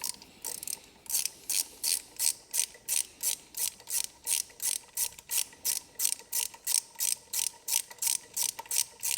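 Small socket ratchet with a T30 Torx bit on an extension bar, worked back and forth in quick even strokes, each back-stroke a burst of pawl clicks, about two and a half a second, as it undoes an ignition coil pack retaining bolt.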